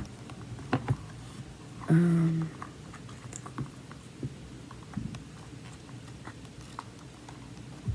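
Light, scattered clicks and taps of small objects being handled, with a brief hummed "mm" about two seconds in.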